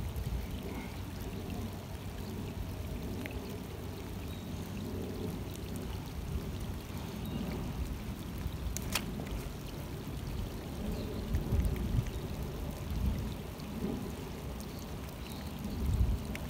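Low, shifting rumble from a belt-clipped phone's microphone rubbing and moving as the wearer moves, with a single sharp click about nine seconds in.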